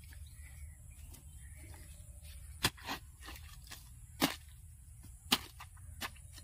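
Hand hoe chopping into dry, stubble-covered field soil: a sharp strike about every second, starting about two and a half seconds in.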